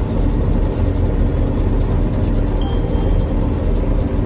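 Combine harvester running under load while cutting rye, a steady low engine drone. A faint short high tone sounds briefly about two and a half seconds in.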